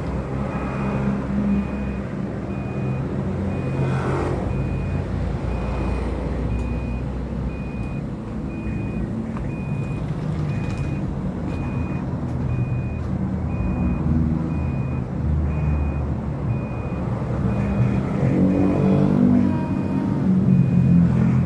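A high electronic beep repeating at an even pace over a steady low engine-like rumble, like a vehicle's reversing alarm.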